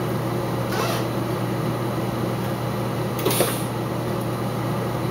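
Steady low machine hum with an even fan-like hiss, and faint knocks about a second in and just after three seconds.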